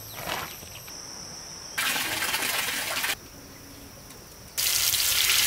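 Rushing water in two loud bursts that start and stop abruptly, with insects chirping steadily between them.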